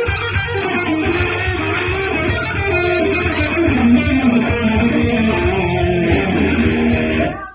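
Guitar-led instrumental rock music, with a melody line moving over a steady low accompaniment.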